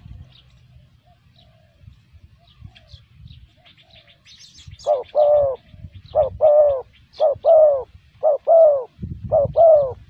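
Spotted dove cooing in a repeated two-part phrase, a short note then a longer arched one. Five phrases come about once a second, starting about halfway through, over faint high chirps.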